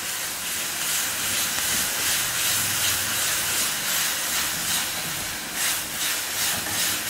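Ground paste of small onions, garlic, ginger and green chilli sizzling in hot coconut oil in a pan: a steady frying hiss as the paste is sautéed until fragrant.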